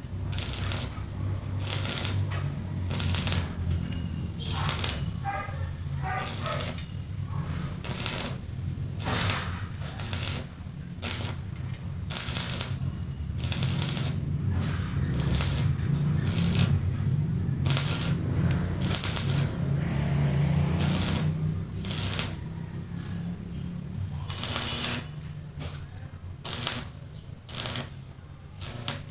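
Repeated short strokes of a hand tool on metal, roughly one a second and fairly even, over a low steady hum.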